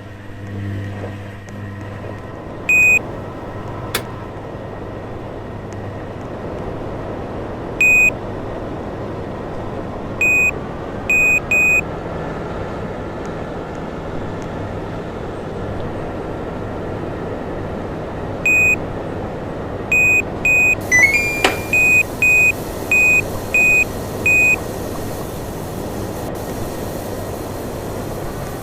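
Washing machine running with a steady hum and rushing noise, while its control panel beeps. Single beeps come now and then, and a quick run of evenly spaced beeps with a short rising chirp comes about two-thirds of the way through.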